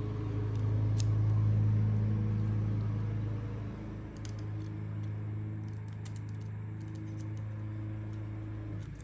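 Small, sparse metallic clicks of a key and padlock being handled and worked, over a steady low hum that drops in level about four seconds in.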